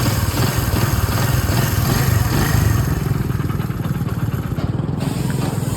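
Motorcycle engine running steadily, with a fast, even pulsing.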